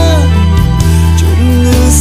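Khmer pop song: a male voice singing over a band with a heavy bass line. A held note ends just after the start, and a new sung line begins past the middle.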